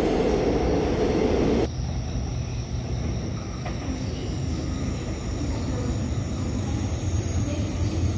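A train rumbling through an underground station, cut off suddenly under two seconds in. Then the low, steady drone of an approaching Korail RDC Mugunghwa diesel multiple unit, growing slightly louder near the end.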